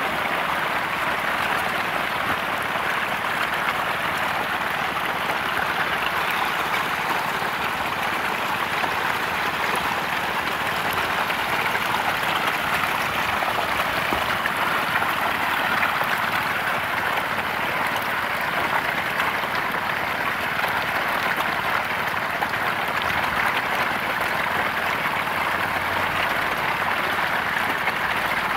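Hundreds of catfish thrashing and splashing in shallow water as they crowd onto a heap of feed: a feeding frenzy. The splashing is a steady, even churning with no pauses.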